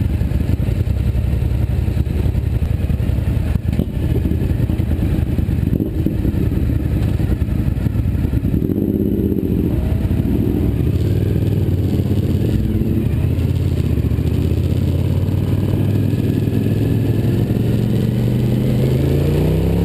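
Suzuki SV1000S's V-twin engine, fitted with a Yoshimura exhaust, running at low revs while the bike crawls through traffic. About halfway through the engine pitch briefly rises and falls, and near the end the revs climb steadily as the bike accelerates.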